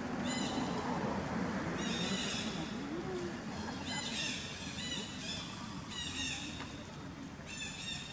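Five short, high-pitched animal calls repeating about every one and a half to two seconds, over a steady low background rumble.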